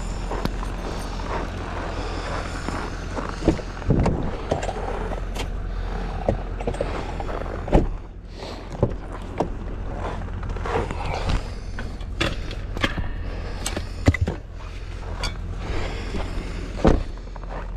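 A vehicle engine running with a steady low hum, with many short knocks and clicks scattered over it.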